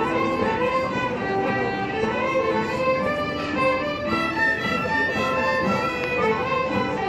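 A folk ensemble of several fiddles, a flute and acoustic guitars playing a tune together, with the fiddles carrying the melody in flowing, held notes.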